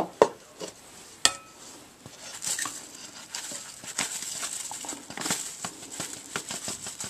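Dry cornmeal being measured into a mixing bowl: a few sharp knocks of the cup against the bowl early on, then a gritty rustling patter as the cornmeal is scooped and poured.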